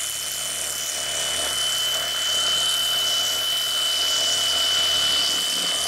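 Electric fillet knife running steadily with a constant high whine as its blades slice thinly along a striped bass fillet, taking off the dark red bloodline meat.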